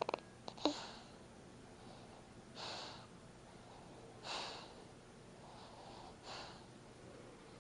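A sleeping baby snoring softly: three faint, snuffly breaths, each about a second and a half to two seconds apart.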